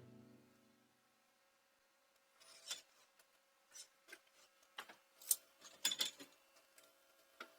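Faint, scattered clicks and scraping rubs, about a dozen short ones spread over the last five seconds, after a brief near-silence.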